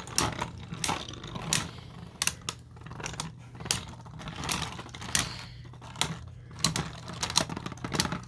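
Beyblade spinning tops clashing and rattling in a plastic stadium: a run of sharp, irregular plastic clacks.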